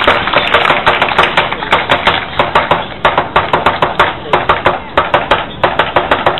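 Wooden kung fu staffs clacking against each other in a fast, uneven run of sharp strikes, several a second.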